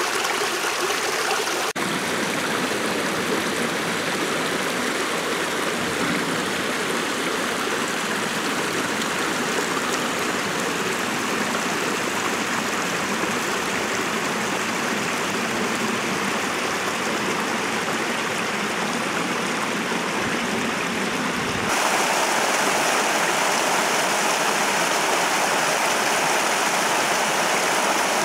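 A small stream splashing steadily over rocks, with a little waterfall. The sound changes abruptly twice and is louder and hissier over the last several seconds.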